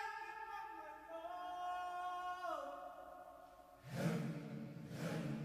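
Soundtrack music: long held wordless singing that slides down in pitch and fades, then a lower, rougher swell comes in about four seconds in.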